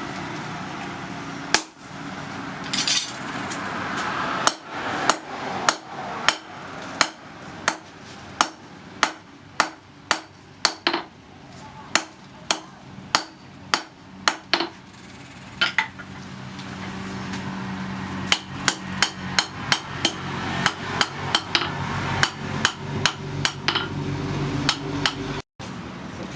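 Hand hammer forging hot steel on an anvil while making blacksmith's tongs: a long run of steady, evenly spaced blows, about two a second, each with a short metallic ring. In the second half the blows come quicker and closer together over a steady low hum.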